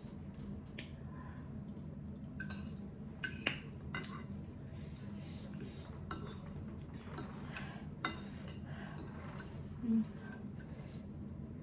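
A metal fork and spoon clinking and scraping against a plate in scattered light clicks, over a steady low background hum.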